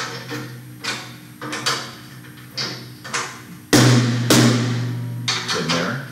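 Rack tom struck repeatedly, about one hit every half second to second, each ringing at the same low pitch to check its tuning after the head was adjusted with a drum key. About two-thirds in the hits become much louder.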